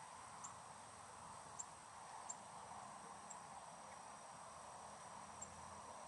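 Faint evening outdoor ambience: a steady high insect drone with several brief high chirps scattered through it.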